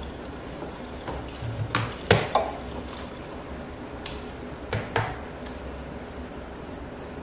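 A handful of sharp clicks and knocks over a faint low hum. There are three about two seconds in, the middle one the loudest, and three more between four and five seconds in.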